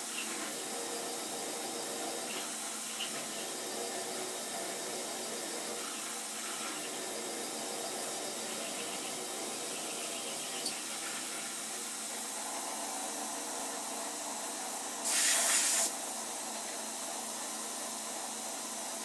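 Milling machine running with an end mill cutting cold-rolled steel, under a steady hiss of spray from the coolant nozzle aimed at the cutter. About fifteen seconds in, a louder hiss lasts about a second.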